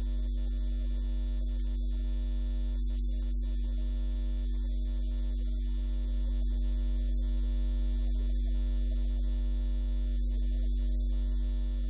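Steady low electrical mains hum, with fainter steady buzzing tones above it. It gets slightly louder about six seconds in.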